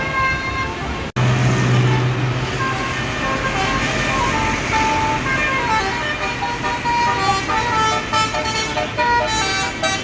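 Basuri telolet horn on a tour bus playing a tune of short, stepped notes that rise and fall, with a steady low hum underneath. The sound drops out abruptly for an instant about a second in.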